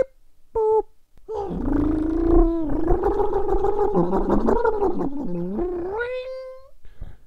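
A cat's short meow, then one long drawn-out yowl of about five seconds that wavers up and down in pitch and rises to a higher held note at the end.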